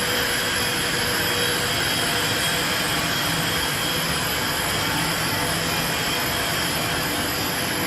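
Steel grating forging machine line running: a steady, even machine noise with a few faint whining tones held underneath it, no distinct strokes or breaks.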